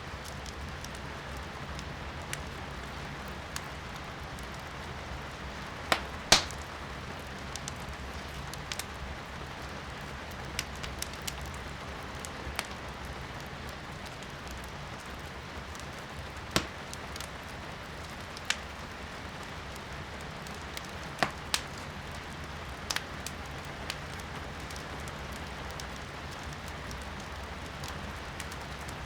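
Wood fire burning in a fireplace with scattered sharp crackles and pops, over a steady hiss of rain. The loudest pops come in a pair about six seconds in.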